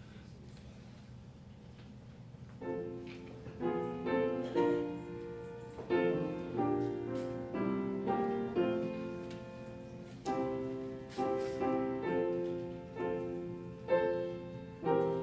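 Piano playing a hymn introduction in full chords, starting about two and a half seconds in after a short stretch of quiet room tone.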